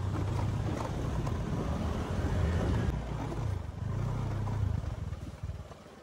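Motor scooter engine running on the move, a steady low rumble with road noise that eases off near the end.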